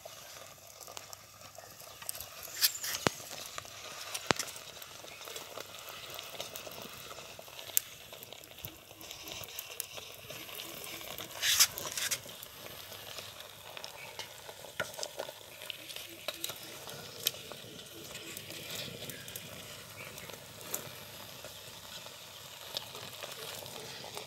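Wooden stick stirring and pressing thick ragi (finger millet) porridge in an aluminium pot, with a steady sizzling hiss. Scattered sharp clicks and knocks run through it, the loudest about halfway through.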